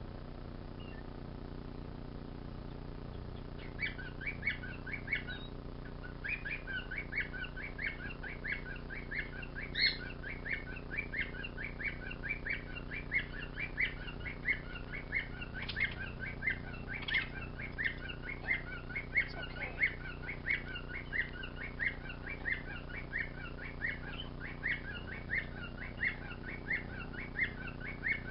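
A bird chirping over and over in an even rhythm, about two short chirps a second, starting about four seconds in, over a steady low hum.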